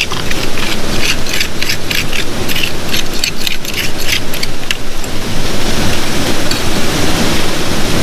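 Metal spoon scraping and scooping gravel and dirt out of a bedrock crevice in quick, scratchy strokes, mostly in the first five seconds, over the steady rush of a waterfall.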